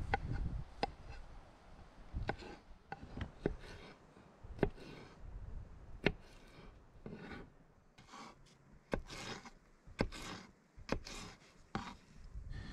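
Irregular knocks and short rubbing scrapes of hand work on wood, some twenty sharp taps and brief strokes spaced unevenly.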